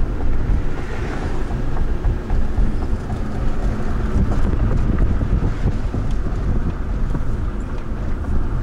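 Wind buffeting the microphone through an open car window while driving, over steady road noise, gusting unevenly.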